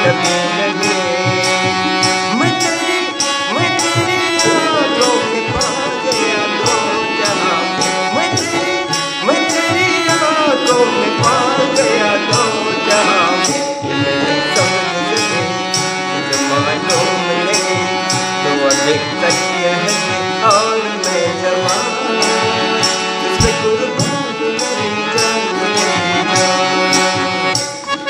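Harmonium and tabla playing together, the harmonium holding steady notes over the tabla's strokes, with a regular high tick keeping the beat about one and a half times a second.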